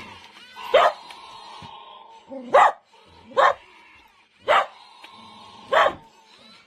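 Primal Hatch Jurassic World T-Rex hatchling toy giving five short, loud bark-like calls from its speaker, each about a second apart, with a faint steady electronic tone between them.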